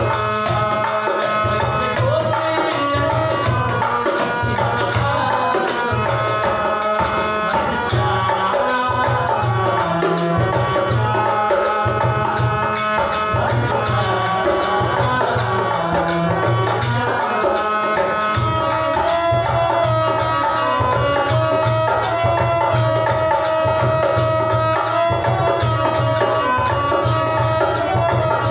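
Harmonium and a driving hand-drum rhythm accompanying a Hindi Krishna bhajan, with male voices singing.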